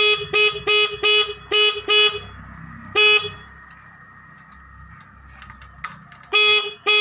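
Suzuki Satria FU motorcycle's electric horn tooting in short, quick beeps, about three a second, then one more a second later. After a pause of about three seconds more beeps come near the end. The horn is sounding again after its adjusting screw was set.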